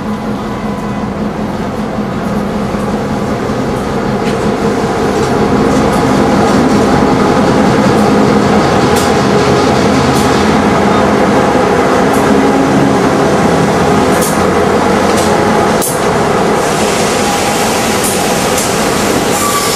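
Norfolk Southern diesel locomotives pulling the track geometry train close past, their engine drone growing louder over the first several seconds as they come alongside. Then the red passenger-style cars roll by, with a run of sharp wheel clicks on the rails.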